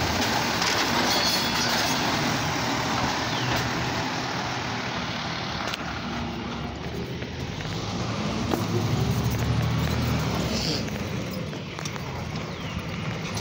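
Automated side-loader garbage truck's diesel engine running as the truck drives past and pulls away down the street, the sound easing off near the end.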